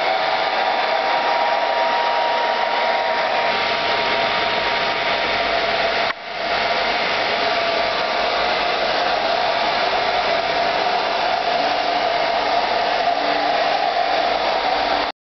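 Hair dryer blowing steadily with an even whine, dipping briefly about six seconds in.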